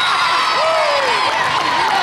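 Volleyball players and spectators cheering and shouting together, many voices overlapping, as a point is won.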